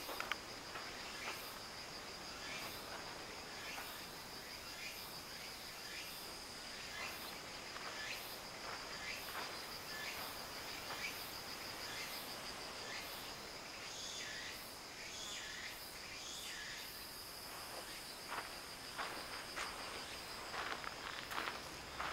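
Insects trilling steadily on one high, finely pulsing note, with scattered short chirps and ticks over the outdoor ambience.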